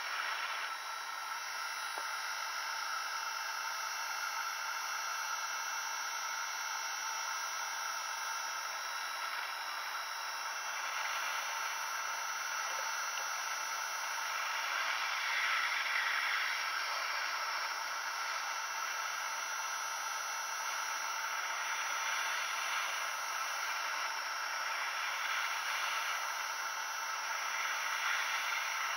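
Hot air rework gun blowing a steady hiss of air with a faint fan whir, heating a foil-shielded chip on a laptop mainboard. The hiss swells briefly about halfway through and again near the end.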